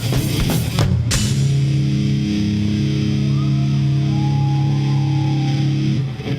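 Live rock band ending a song: a few last drum hits in the first second, then a held electric guitar and bass chord rings steadily for about five seconds and is cut off near the end.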